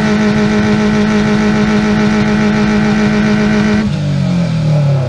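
Car engine revved hard and held at a steady high rpm through its exhaust for about four seconds, then let go, the revs falling away.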